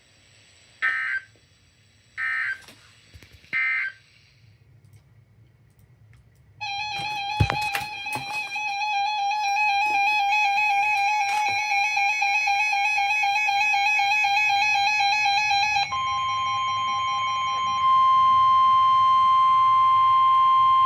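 Three short data bursts of the weather-alert end-of-message code in the first few seconds. After a pause, an electronic alarm sounds a warbling tone for about nine seconds. Then comes the steady 1050 Hz NOAA Weather Radio warning tone, which gets louder a couple of seconds in.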